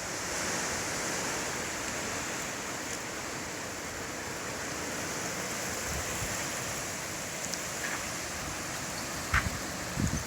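Strong wind rushing through trees, a steady rustling of leaves, with low buffeting of wind on the microphone near the end.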